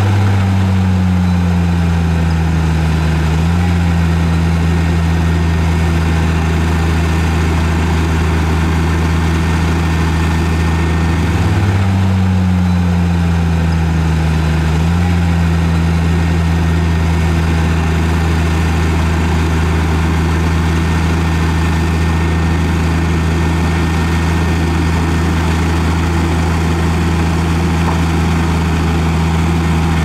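Heavy earthmoving machine's diesel engine running steadily. Twice, just after the start and again about twelve seconds in, its pitch steps up and then sags back over about three seconds.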